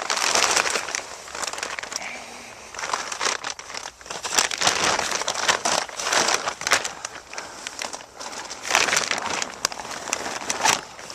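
Plastic trash-bag sheeting crinkling and rustling in irregular bursts as a person crawls over it on dirt.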